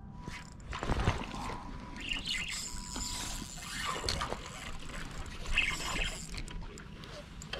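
Close handling noise: rustling clothing with irregular small clicks and knocks from fishing tackle being worked by hand. A few louder knocks come about a second in, around four seconds and again just after five and a half seconds.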